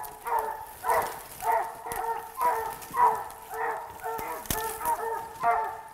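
Squirrel dog barking steadily at a tree, about two short barks a second: a treeing bark, the dog signalling a squirrel treed.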